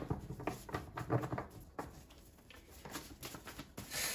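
Tarot cards being handled on a table: a scatter of soft taps and rustles, then a longer brushing sound near the end.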